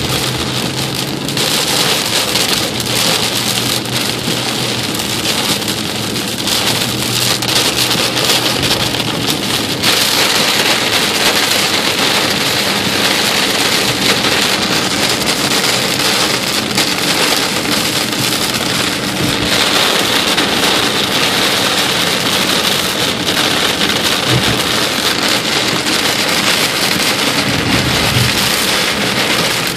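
Heavy rain drumming on a car's roof and windshield, heard from inside the car as a loud, dense hiss that gets heavier about ten seconds in.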